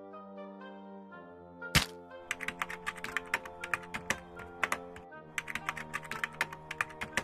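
Background music with long held chords. About two seconds in comes a sharp knock, then a rapid, uneven run of clicks that pauses briefly near the middle and starts again.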